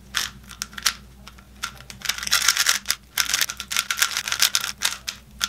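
Non-magnetic plastic 3x3 speed cube being turned fast during a solve: rapid, kind of loud clicking and clacking of the layers. The clicks are sparse at first and come thick and fast from about two seconds in.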